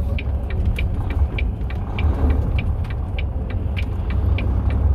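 Volvo semi truck's diesel engine running at low speed, heard from inside the cab as a steady low rumble, with a light regular ticking about three times a second.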